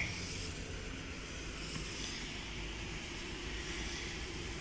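Steady low hum of a truck engine idling, heard from inside the cab.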